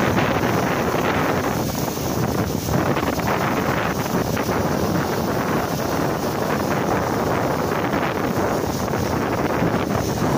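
Fast-flowing river water rushing and churning around a concrete pillar, as a steady loud noise.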